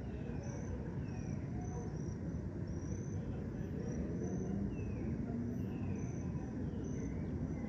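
Dusk park ambience: crickets chirping in short high pulses about once or twice a second, several birds calling with short falling notes, over a steady low rumble of distant city traffic.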